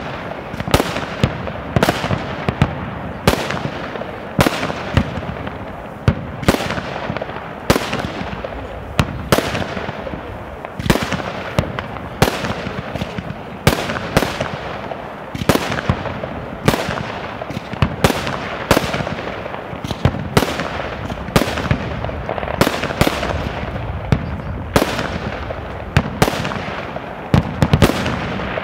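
Aerial fireworks bursting in steady succession, a sharp bang roughly every second without a break.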